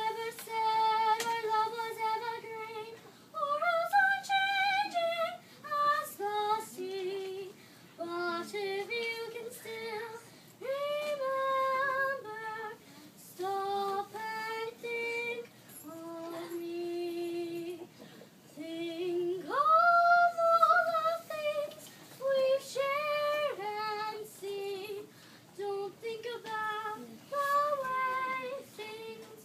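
A young girl singing a song solo: a single melodic line of held notes with vibrato and short breaks between phrases, with a loud sustained high note about two-thirds of the way through.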